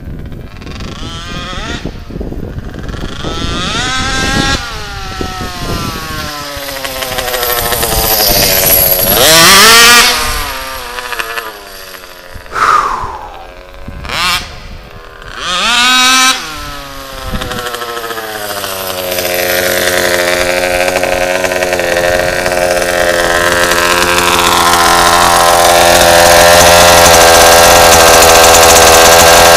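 RCMAX 90cc two-stroke petrol engine of a large-scale HPI Baja RC car. In the first half it makes several high-speed passes, each rising in pitch as it comes in and dropping as it goes by. After that it runs at a steady speed close by, getting steadily louder.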